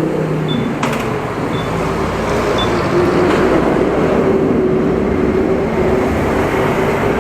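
Motorcycle engine running steadily, with a sharp click about a second in.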